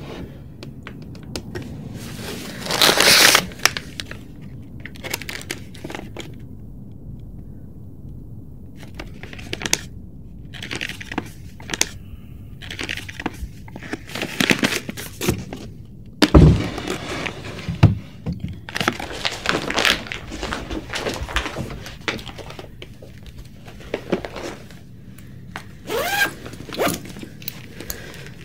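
Clothes being rummaged out of a wooden chest of drawers and packed: fabric rustling and scraping, broken by thunks and knocks of the drawers, the sharpest about sixteen seconds in.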